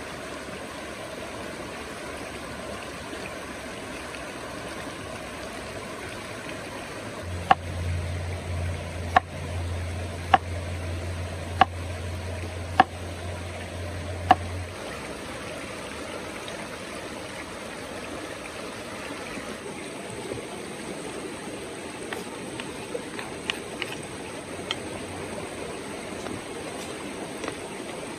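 Forest stream rushing steadily over rocks. About seven seconds in come six sharp knocks, roughly a second apart, from a knife cutting down onto a wooden board, over a low hum. A few lighter taps follow near the end.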